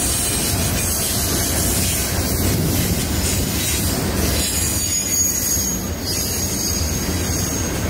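Double-stack container well cars of a freight train rolling past at steady speed, wheels rumbling on the rails. A thin, high, steady wheel squeal joins about halfway through.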